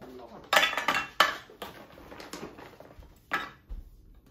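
Snacks being put into a white enamel dish on a wooden folding table: a few sharp clatters and rattles, the loudest about half a second and a second in, with another near the end.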